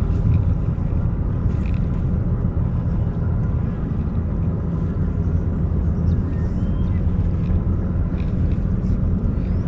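Boat motor running steadily with a low, even rumble.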